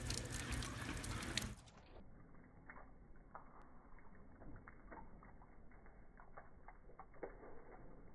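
Meltwater trickling and dripping off ice onto rock. About a second and a half in, the sound suddenly turns quieter and muffled, and the run of water breaks into separate, slowed-down drips, as slow-motion playback begins.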